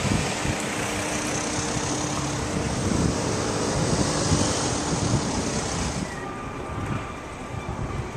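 Steady rushing noise of a passing vehicle, with a faint low hum, that eases off about six seconds in.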